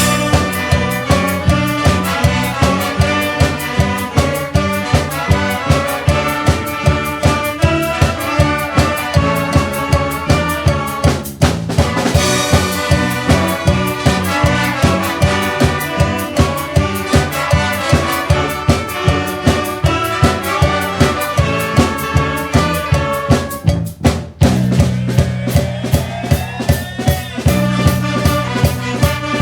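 Music with brass horns over a drum kit and a steady beat, broken by two brief pauses.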